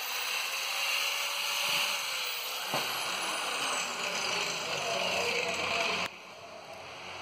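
Handheld angle grinder cutting through a metal fuel injector held in a vise. The grinder is switched off about two and a half seconds in, with a click, and its whine falls in pitch as the disc spins down. The sound is quieter near the end.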